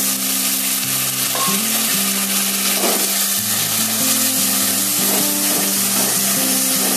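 Mushroom curry sizzling in mustard oil in a kadhai, stirred with a flat steel spatula as freshly added mustard paste is worked into it; a steady sizzle.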